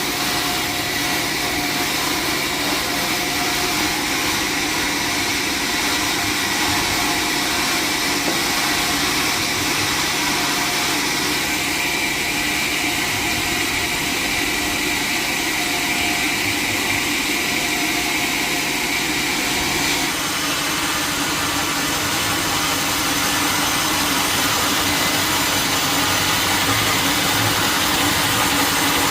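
Sawmill machinery running steadily with a whining, engine-like drone. Its tone shifts about twenty seconds in.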